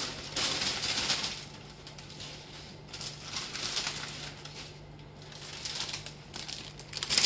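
Plastic bag of baby spinach crinkling as the leaves are shaken out of it into a pot, densest in the first second or so, then scattered crinkles as the bag is handled. A steady low hum runs underneath.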